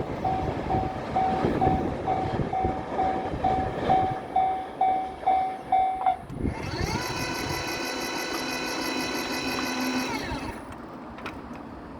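Japanese level-crossing warning bell ringing in an even rhythm, a little over two rings a second, while the last container wagons of a freight train rumble past with rhythmic clacks of wheels over rail joints. The bell stops about six seconds in. An electric motor whine then rises, holds for about four seconds and winds down, as the crossing barriers lift.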